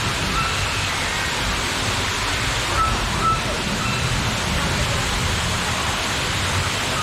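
Steady rush of falling water and rain from the ride's rainforest scene, with a low rumble underneath and a few short, high whistling calls scattered through it.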